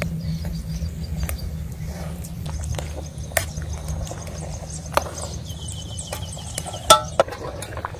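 A pot of fish head soup bubbling at the boil, with a metal spoon knocking against the pot a few times. A quick run of high chirps, like small birds, sounds about two-thirds of the way in.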